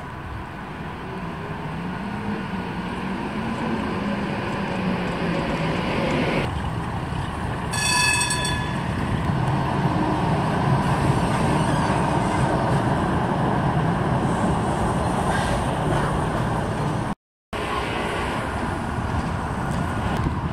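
ČKD Tatra trams running on street track, a steady rumble of wheels and motors. About eight seconds in, a short pitched warning signal sounds once.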